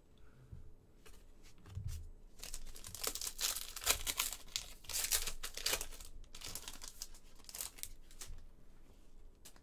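A foil trading-card pack wrapper being torn open and crinkled by hand, an irregular run of crackling rustles that is loudest in the middle and dies away near the end.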